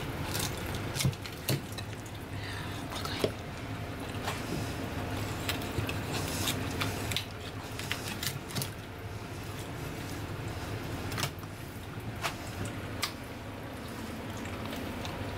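A knife cutting through a raw stingray on a cutting board: wet squishing of the flesh with scattered sharp clicks and knocks, over a steady hum.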